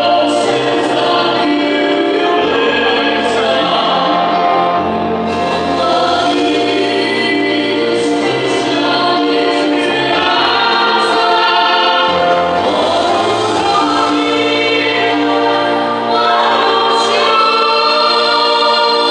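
Voices singing together into microphones, a slow song of long-held notes with no break.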